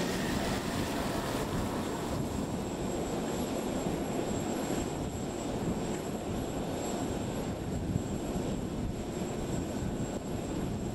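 Steady, even rumble of jet aircraft engines running.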